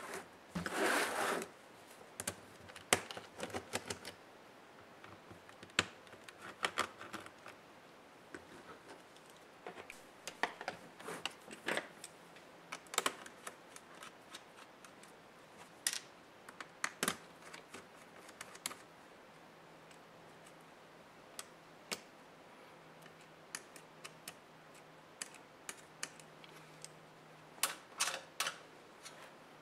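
Irregular small clicks and taps of hand tools and plastic laptop parts being handled during the disassembly of an HP Pavilion 15 laptop, with a short, denser rasping burst about a second in.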